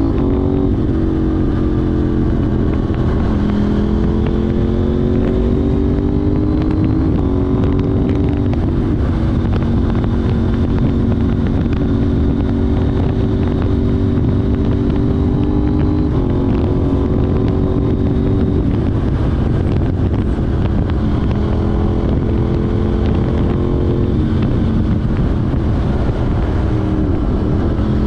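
KTM 790 Duke's parallel-twin engine running through an Arrow Race Tech exhaust with a de-cat pipe while riding, its note falling, climbing and shifting pitch in steps several times, over a steady low rush.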